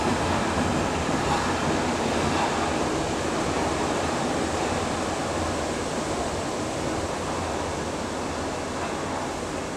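Berlin U-Bahn D57 prototype train running into an underground station and along the platform: a steady rumble of wheels on rail and running gear that slowly gets quieter as the cars pass.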